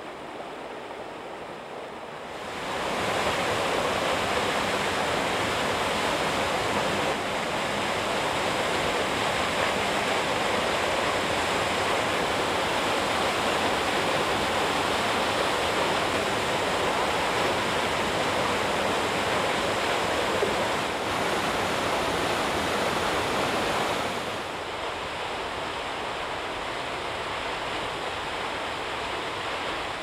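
Steady rushing of water from Aira Force waterfall and its rocky beck. It steps up louder about two and a half seconds in, then eases a little for the last six seconds or so.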